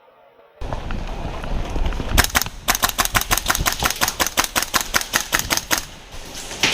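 Airsoft guns firing a long rapid string of shots, about seven sharp cracks a second for roughly three and a half seconds, starting about two seconds in.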